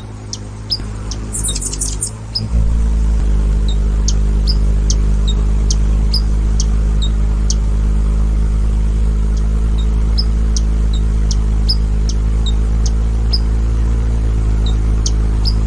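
Hummingbird wing buzz heard as a steady low hum, with short high chirps repeating about twice a second.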